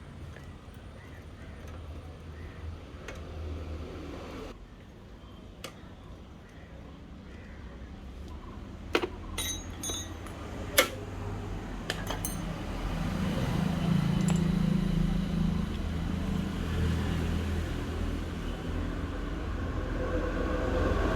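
A few sharp metallic clinks from rusty bicycle parts being handled, over a low steady hum that grows louder in the second half.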